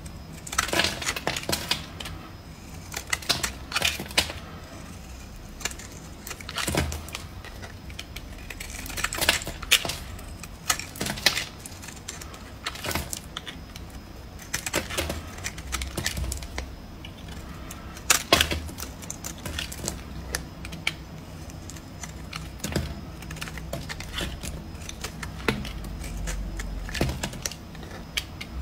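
A metal blade carving a bar of soap: crisp scraping and crackling as flakes and chips break off, heard as irregular runs of sharp clicks.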